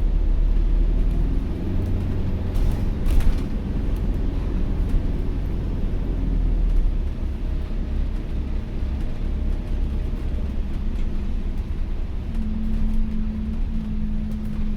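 Inside an ADL Enviro400H City hybrid double-decker bus on the move: a low drivetrain rumble with a steady hum that steps up in pitch about twelve seconds in, and a brief rattle about three seconds in.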